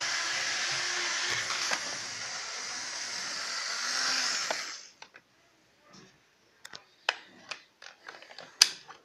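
Toy train's small electric motor whirring steadily as the train runs, cutting off about five seconds in. Then a few sharp plastic clicks and knocks as the toy trains and track pieces are handled.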